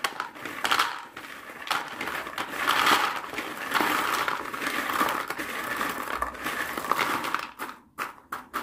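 Crispy fried karak (dried-rice crackers) tumbling from a plastic bowl into a plastic box, pushed along by hand: a dense crackling rattle that dies down near the end.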